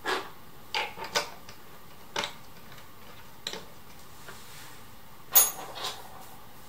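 Short, scattered clicks and taps of steel screws and a hard plastic armrest bracket being handled as the screws are set by hand into the bracket's holes under a chair seat, with a sharper, louder click about five and a half seconds in.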